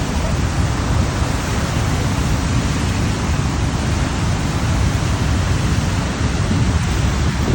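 The Rhine Falls: waterfall water crashing down in a loud, steady rush.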